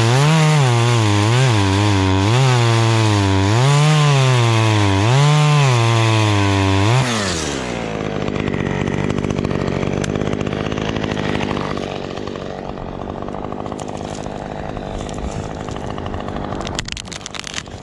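Husqvarna chainsaw making the felling cut through a spruce trunk at full throttle, its pitch wavering up and down under load, then dropping to idle about seven seconds in. It idles for the rest, with a few sharp cracks near the end.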